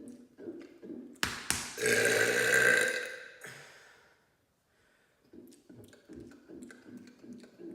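A man's long, loud mega burp, low-pitched and lasting about two seconds before it tails off. Before and after it come runs of quick short gulps, about three a second, as air is swallowed for the next burp.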